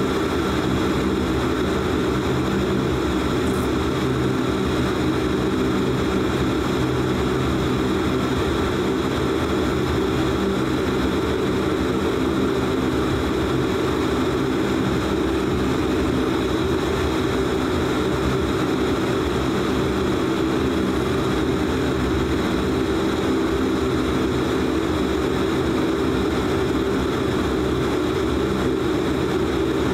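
Dash 8-Q400's Pratt & Whitney PW150A turboprops and propellers heard inside the cabin during taxi: a steady drone with several fixed low tones, unchanging in level.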